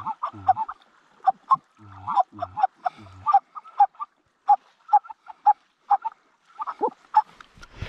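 Goose honks and clucks in a fast run of short calls, about three a second, from a hunter's hand-blown goose call. Deeper notes come in under the first few seconds of calls.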